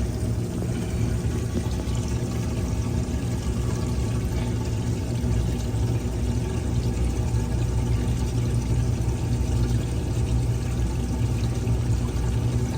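Water draining steadily down a laundry drain pipe, a continuous rush of running water over a low, steady hum.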